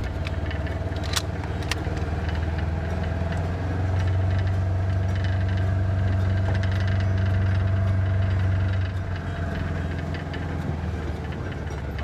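Side-by-side utility vehicle's engine running as it drives over rough dirt. It grows louder from about four seconds in and eases off again near nine seconds. A few sharp knocks from the cab come in the first two seconds.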